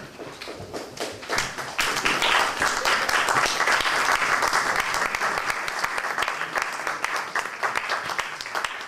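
Audience applauding: a dense patter of many hands clapping that swells about a second and a half in and thins out near the end.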